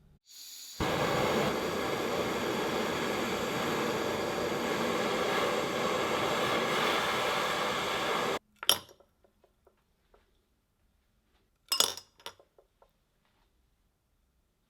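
A steady hiss of pressurised spray or air, starting about half a second in and cutting off sharply after about eight seconds, followed by a few light metallic clinks of small parts being handled.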